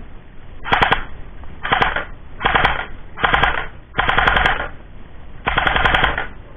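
Battery-powered airsoft M4 SOPMOD rifle firing full auto in six short bursts, its gearbox cycling rapidly within each burst.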